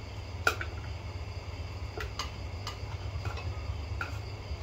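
Metal spoons clinking and scraping against ceramic plates during a meal: about half a dozen separate clinks, the loudest about half a second in, over a steady low hum.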